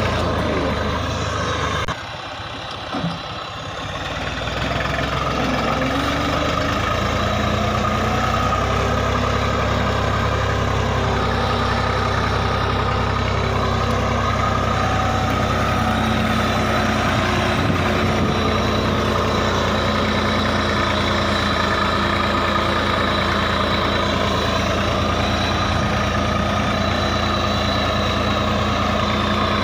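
Massey Ferguson 240 tractor's three-cylinder diesel engine running steadily while it pulls a disc ridger through the soil. About two seconds in, the sound drops for a couple of seconds, then comes back to full level.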